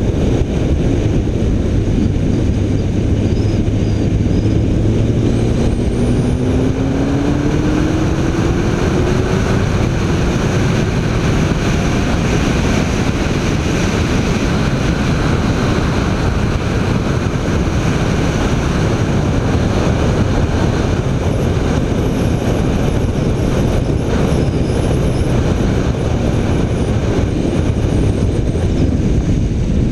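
BMW K1300 R's inline-four engine under hard acceleration while the bike is ridden at speed, its note climbing steadily for several seconds about a quarter of the way in, over a constant rush of wind and road noise.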